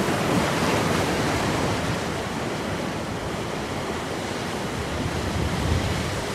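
Steady rush of wind and water aboard a sailing yacht under way, with wind rumbling on the microphone.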